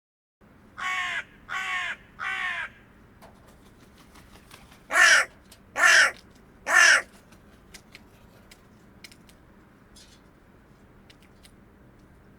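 Hooded crow cawing: a series of three caws about a second in, then a louder series of three caws about four seconds later.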